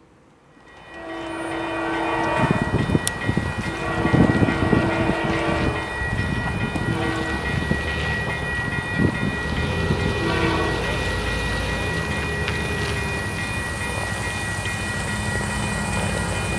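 Locomotive horn on CP GP20C-ECO 2249 sounding for a level crossing in several chord blasts, the first two long and the later ones short. A steady high warning tone from the activated crossing signal runs underneath. The diesel locomotive's rumble grows louder near the end as the train approaches.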